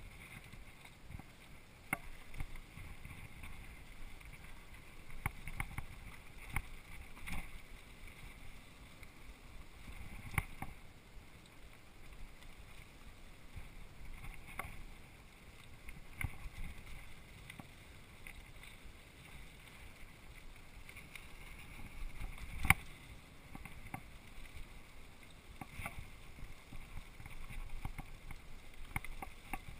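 Mountain bike rattling and knocking as it rolls down a rocky dirt singletrack, over a steady rumble of trail and wind noise on the microphone. Frequent short clacks come as it rides over rocks and roots, and one sharp knock about two-thirds of the way through is the loudest.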